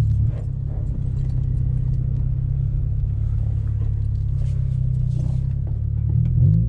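Lowered Honda Civic EK coupe driving at low speed, heard from inside the cabin: a steady low engine and road drone, with a few faint clicks.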